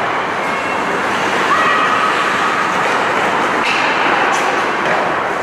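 Ice hockey play on an indoor rink: a steady wash of skates on the ice and arena noise, with two sharp clacks of sticks or puck a little before the end.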